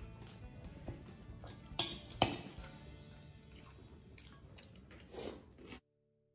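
Metal spoon clinking and scraping against a glass bowl of chocolate cereal in milk, with two sharp clinks about two seconds in. The sound cuts off abruptly shortly before the end.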